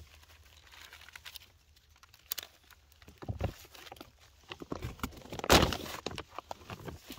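A newly lit fire of dry pine cones and kindling crackling, with scattered small snaps and a louder crackle or knock about five and a half seconds in.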